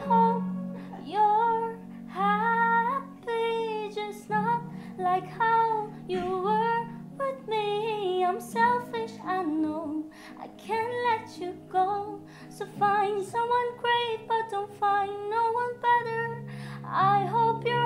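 A young girl singing a slow, melodic song solo over low, steadily held backing chords.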